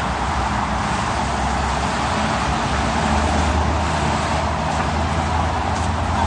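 Steady city street traffic noise from passing cars, with a heavier low engine rumble swelling up about halfway through.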